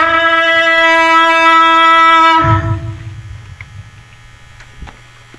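Background music: a long held, reedy wind-instrument note that breaks off about halfway through, leaving only a faint low hum.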